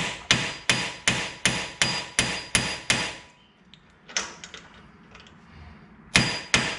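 Hammer blows on a punch, driving a bearing spacer into the end of a Jeep CJ7's AMC 20 rear axle housing. A run of about nine evenly spaced strikes, roughly three a second, each with a short metallic ring. Then a pause with a few light taps, and the blows start again near the end.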